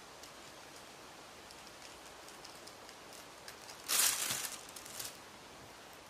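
A few faint scissor snips over a steady rustle of wind-blown leaves; about four seconds in, tissue paper rustles loudly for about a second as it is handled and moved aside.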